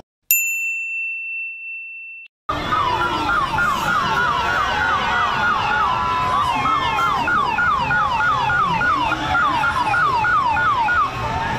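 A single electronic chime rings and fades over about two seconds. Then a siren yelps in fast repeated sweeps, several a second, over the steady noise of a crowd.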